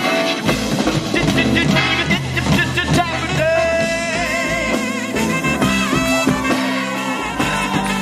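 Swing band playing live, with drums, guitar and bass keeping the beat. A long held melody note with vibrato comes in about halfway through.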